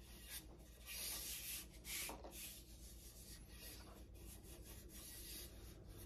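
Faint rubbing and brushing of hands sliding over and handling a smooth wooden axe handle, a little louder about one and two seconds in.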